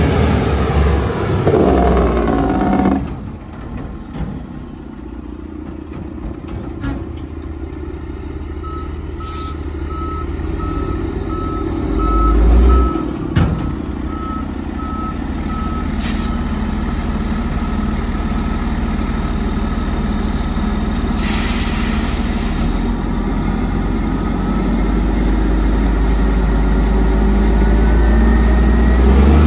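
Diesel engine of a 2016 Western Star 4900SF dump truck running, with its reversing alarm beeping about twice a second for several seconds and a short hiss of released air a while later. Near the end the engine drone grows louder as the dump bed begins to raise.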